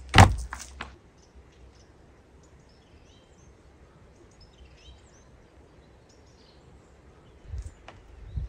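A sheep's lungs, liver and heart dropped onto a wooden cutting board with one sharp wet slap, followed by a few small knocks. Faint birds chirp in the quiet that follows, and near the end come low knocks of a knife starting to cut on the board.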